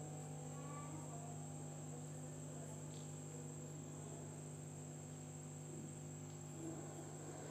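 Faint steady background hum with a high, continuous whine above it; the knife slicing through soft dough makes no clear sound.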